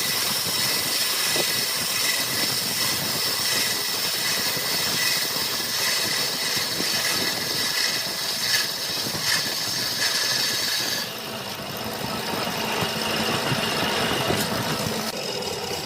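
Wood lathe running, a steady machine drone with a high whine. The high whine drops out about eleven seconds in while the machine keeps running.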